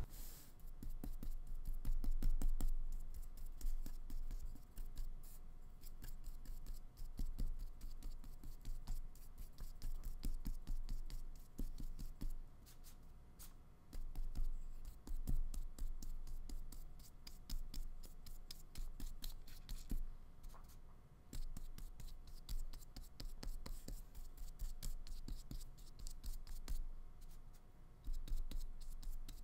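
Flat paintbrush stroking acrylic paint onto paper: an irregular run of short scratchy brush strokes, picking up paint from the palette between strokes.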